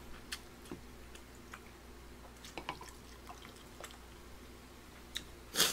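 Beer being poured from a plastic bottle into a glass: quiet dripping and trickling with small scattered ticks, and one sharp, louder noise near the end.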